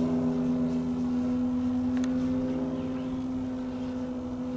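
Skywing ARS300 RC plane's motor and propeller droning steadily in flight overhead, holding one pitch and fading slightly toward the end.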